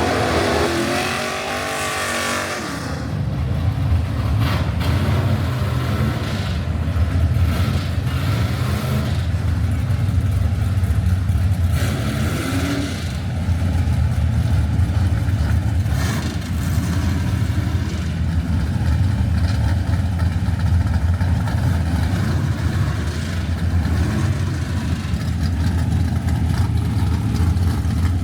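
Drag-racing car engine revving with gliding pitch, then settling into a loud, steady, low engine rumble about three seconds in.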